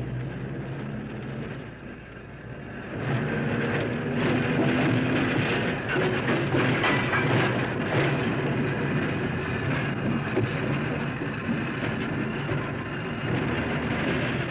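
Pacific Electric Red Car interurban streetcar running along street track: a steady electric hum and rumble of the car and its wheels on the rails, getting louder about three seconds in.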